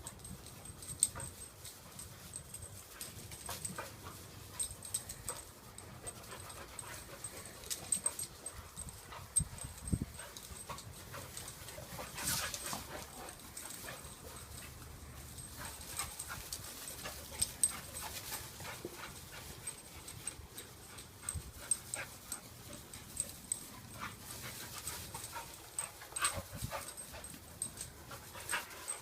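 A dog making sounds while playing, over many scattered short clicks and knocks.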